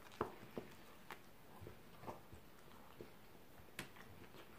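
Faint close-up mouth sounds of a man biting into and chewing a sandwich: scattered soft clicks and smacks of chewing, the clearest about a quarter second in and near the end.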